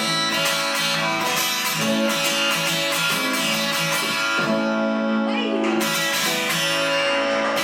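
Guitar strumming steadily through the closing bars of a song, with a brief sliding voice-like sound about five seconds in.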